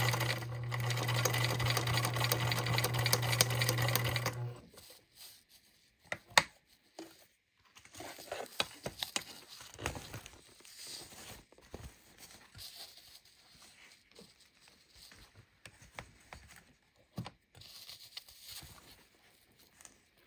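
Sewing machine running steadily, stitching through a fabric strap, then stopping abruptly about four and a half seconds in. After that come quieter scattered clicks and rustling as the fabric is handled and repositioned under the needle.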